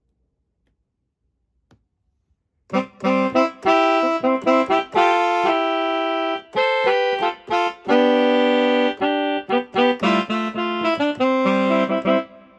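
Korg Pa900 arranger keyboard playing its loaded 'M1 sax' sample: a reedy melodic phrase of short and held notes, starting after near silence about two and a half seconds in.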